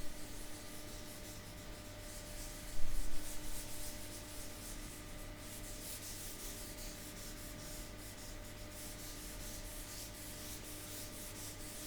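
Sandpaper rubbed over the wooden surface of a speaker cabinet in quick back-and-forth strokes, after a single dull knock about three seconds in.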